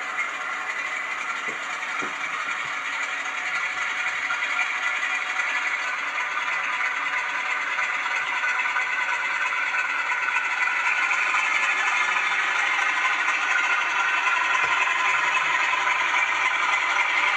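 Class 47 diesel engine sound from a Zimo ZS47A sound decoder, played through a small bass-reflex speaker in a model locomotive: a steady rattling engine note with little bass, growing gradually louder.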